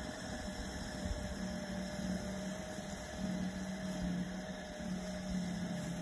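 Remote-control snow blower's motor running at a distance as it clears snow: a steady low hum that swells and fades a little, with a fainter higher tone above it, over a soft background hiss.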